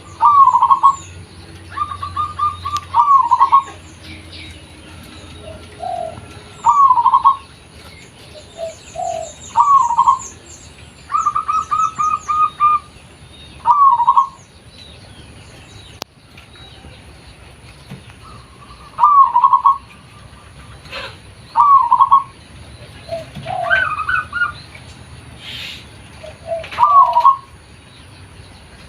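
Zebra dove (perkutut) cooing: about ten short phrases of quick staccato coos spaced a few seconds apart, with fainter chirps of small birds high above.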